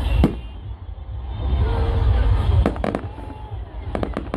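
Fireworks going off: a sharp bang just after the start over a heavy low rumble, a quick cluster of cracks near three seconds, then a rapid run of crackling reports near the end.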